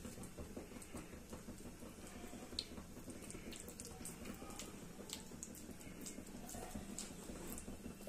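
Quiet room tone with faint scattered soft clicks and squelches of hands pressing boiled spinach paste around a paneer ball.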